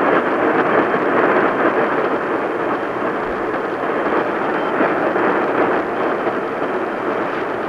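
Steady hiss of radio static, held to the narrow band of a radio receiver's audio.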